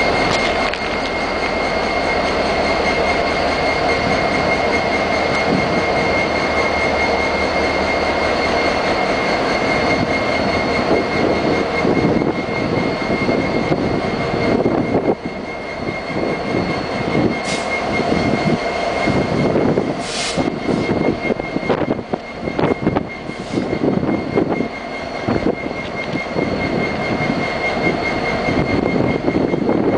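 Two EMD SD70ACe diesel-electric locomotives running, with their 16-cylinder two-stroke turbocharged prime movers and cooling fans making a steady loud mechanical noise and a high whine. About halfway through the noise starts to waver unevenly.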